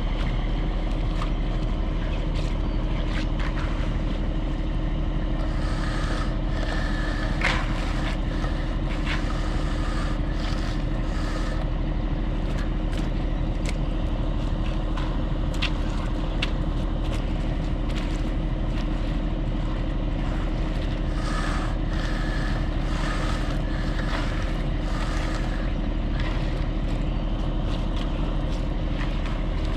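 Concrete truck engine running steadily, with scattered scrapes and clicks over it.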